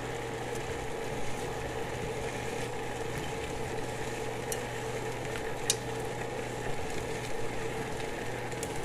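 Pot of water boiling on the stove with bean sprouts blanching in it, a steady hiss over a constant hum, with a few light clicks, the loudest about six seconds in.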